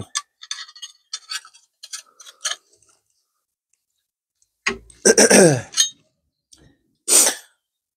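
Sheet-metal repair patch being set into a cast-iron bench vise: light metallic clicks and taps, then a clunk and a short squeal falling in pitch about five seconds in as the vise handle is turned, and a brief rasp near the end.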